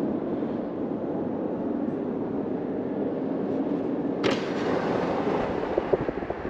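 Steady road and engine noise heard inside a moving car, broken by a single sharp click about four seconds in. Toward the end, wind buffets the microphone in irregular thumps and crackles.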